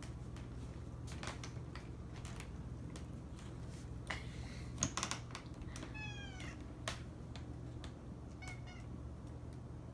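A house cat meowing once about six seconds in, the call falling in pitch, and a shorter, fainter meow about two and a half seconds later, begging for ham. Light sharp clicks and taps come and go, the loudest a second before the first meow, over a steady low hum.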